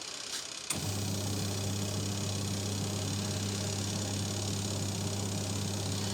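A twin-tub washing machine's wash motor is switched on with a click about a second in, then hums steadily.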